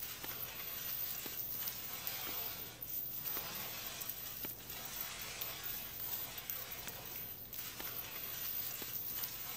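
Low, steady hiss with a faint hum underneath; no clear events stand out.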